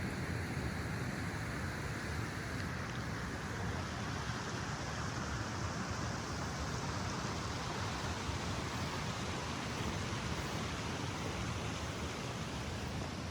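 Steady rushing of a flowing mountain stream.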